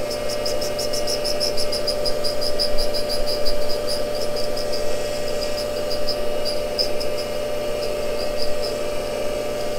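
Cincinnati tool and cutter grinder running with a steady hum while its wheel grinds the outside of a 5/16 end mill fed in a couple of thousandths: a fast, light ticking of the cutter touching the wheel, about five a second, thinning out and turning irregular after about four seconds.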